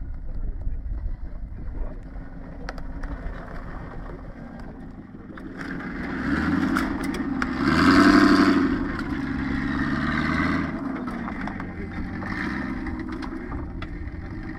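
Range Rover V8 engine working under load off-road: it runs low at first, then revs up from about six seconds in, rising in pitch to its loudest about eight seconds in and easing off, with further shorter revs around ten and twelve seconds.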